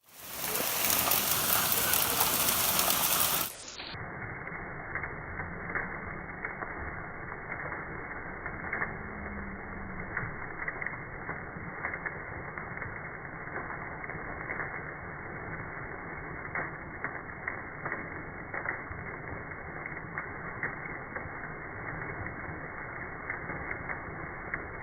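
Hailstones pelting down in a dense, irregular rattle of small hard clicks over a steady hiss. It is loud and bright for the first three or so seconds, then suddenly turns duller and quieter.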